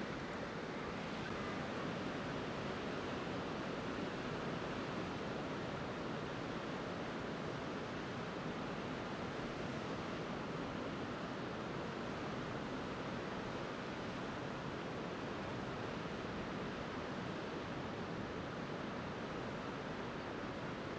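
Steady wash of ocean surf breaking: an even noise with no single wave standing out.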